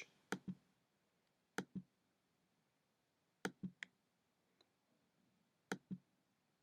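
Faint computer mouse clicks in small groups of two or three, a few seconds apart, with near silence between them.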